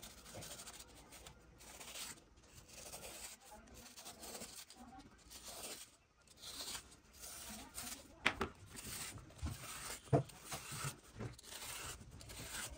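A kitchen knife scoring a tray of set adadiya into pieces: repeated faint scraping strokes as the blade drags through the sweet and along the steel tray, with two sharp taps in the second half.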